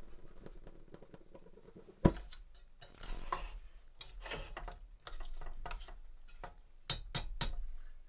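Metal spoon stirring food in a stainless steel cooking pot, scraping and clinking against the metal. There is one sharp clank about two seconds in and a quick run of clinks near the end.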